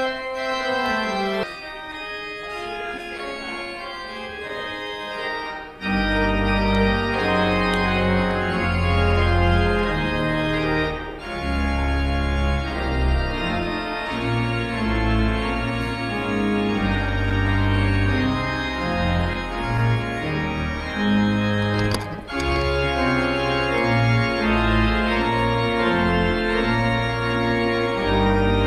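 Organ playing the closing postlude in sustained chords, with deep pedal bass notes coming in about six seconds in.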